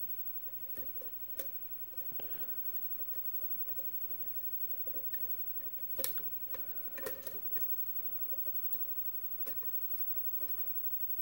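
Faint, irregular clicks and ticks of a lock pick working the spool pins of a pin-tumbler lock under a top-of-keyway tension wrench, the core sitting in a deep false set. A sharper click comes about six seconds in, with a few more a second later.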